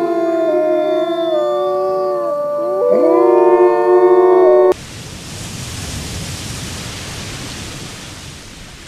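Several grey wolves howling together: long, overlapping pitched howls that glide up and down and cross one another, cutting off abruptly about five seconds in. A steady hiss follows, slowly fading.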